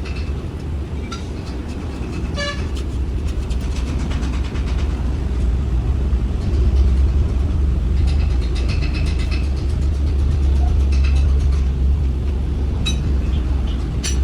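A machine running with a steady low drone that grows louder about halfway through, with scattered short metallic clicks and taps over it.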